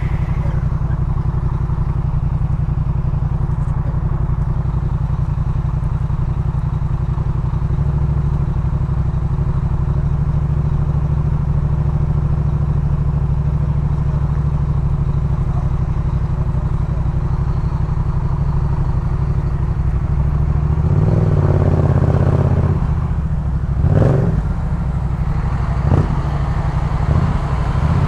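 Yamaha MT-07's 689 cc parallel-twin engine through a Jeskap K4 full exhaust system, idling steadily. From about 21 seconds in it revs up, then gives several short, sharp throttle blips near the end.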